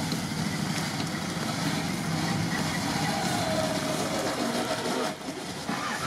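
Toyota 4Runner's engine running as the SUV crawls forward through deep mud, dipping briefly near the end.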